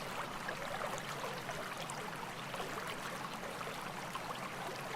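Running stream water, babbling and bubbling steadily over the shallows.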